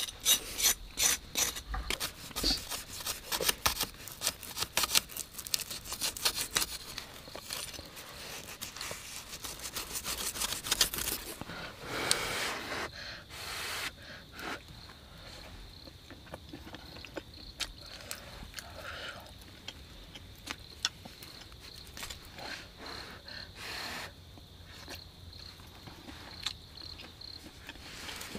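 A knife scraping and cutting at small roasted animals on a stick: quick repeated scraping strokes for about the first eleven seconds, then sparser small clicks and chewing. A faint steady high tone runs through the later part.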